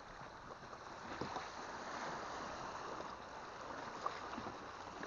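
River water gurgling and lapping in a steady wash, full of small bubbling blips, with a small plop about four seconds in.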